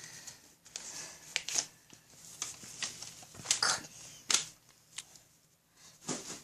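Paper airplane being handled and its wing tips bent: sheet paper rustling and crinkling in short, irregular bursts.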